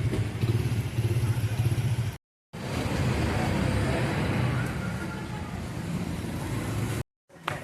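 Road traffic noise on a town street: cars running past, with a steady low rumble. The sound cuts off abruptly about two seconds in and again near the end.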